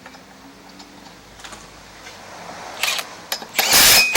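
A few metal clicks as the flywheel is seated on the crankshaft, then a power impact wrench running loudly in a dense rattle, with a short break, as the flywheel nut is driven tight.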